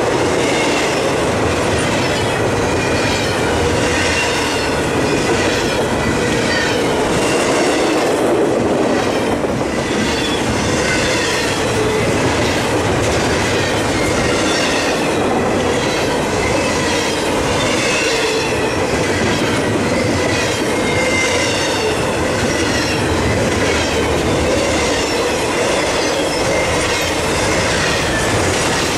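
Double-stack intermodal freight train rolling past close by. The steel wheels give a steady rumble on the rail, with a clatter that repeats at a steady beat as the cars' wheelsets go by.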